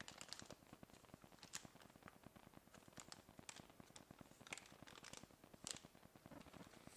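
Faint crackling and clicking of plastic pheromone-lure sachets and packaging being handled, as a string of scattered short ticks.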